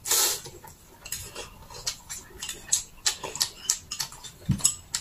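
Noodles slurped noisily at the very start, then close-up wet chewing and mouth smacks, with short clicks of chopsticks on dishes.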